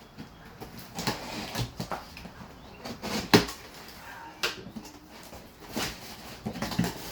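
Cardboard shipping boxes being opened and handled: scattered knocks, scrapes and rustles of cardboard, with one sharp knock about three seconds in.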